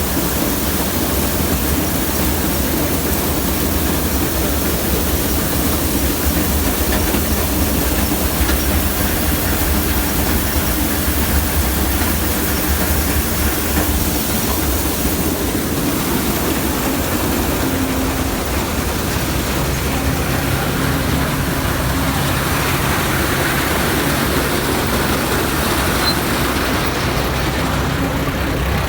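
Combine harvester running steadily: a loud mechanical rumble with a low engine hum and a wide hiss over it. About twenty seconds in a lower steady hum comes in, and near the end the high hiss falls away.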